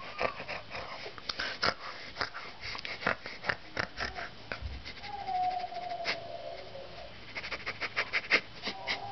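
Domestic cat giving one soft, drawn-out meow about two seconds long around the middle, amid scattered clicks and rustles of close handling as the cat is petted.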